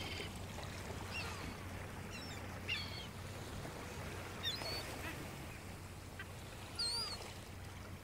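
Sea ambience: a steady wash of ocean noise with short bird calls every second or two, some of them rising and falling.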